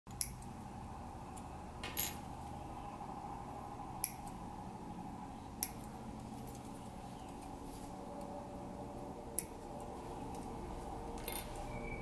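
Hobby side cutters snipping plastic model parts off the sprue: six short, sharp snips a second or more apart, irregularly spaced.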